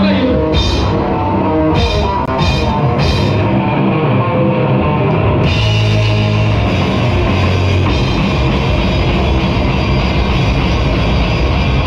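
Live rock band playing loud through amplifiers, with drum kit and electric guitars. A few separate sharp drum hits fall in the first three seconds, then the whole band comes in full about five and a half seconds in and keeps going.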